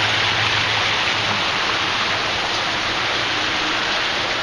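Artificial waterfall on a rock-walled mini-golf course, pouring with a steady, even rush of falling water.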